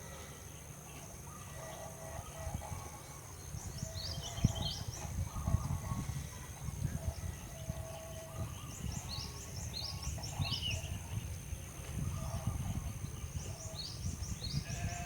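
Sooty-headed bulbul chirping: three bursts of quick, falling high chirps with shorter lower notes between, over a steady high-pitched tone and a low rumble.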